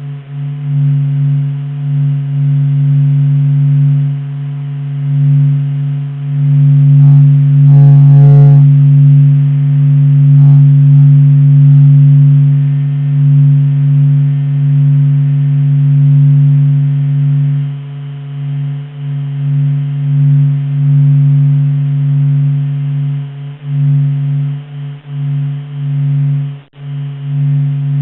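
Sonification of the Sun's surface oscillations measured by SOHO's Dopplergraph instrument, converted by computer into sound: a steady low drone with a higher overtone and fainter tones above it, its loudness swelling and dipping, more choppy in the second half. A brief cluster of higher tones sounds about eight seconds in.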